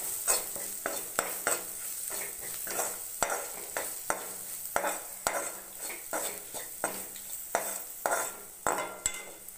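Spatula stirring and scraping garlic, onion and peanuts with freshly added spice powders around a kadai, in short repeated strokes about one and a half a second, over a light sizzle of oil. The masala powders are being fried into the oil.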